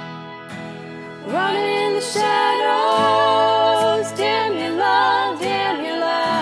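Acoustic guitar strumming, joined about a second in by several female voices singing together in harmony.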